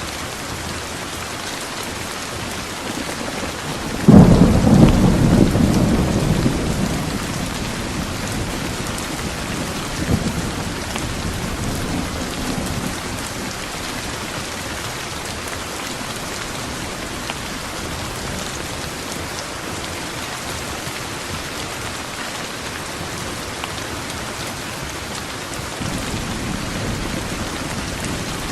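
Steady heavy rain hissing, with a thunderclap breaking sharply about four seconds in and rolling away over a few seconds. Lighter rumbles follow near ten and twelve seconds, and another low rumble builds near the end.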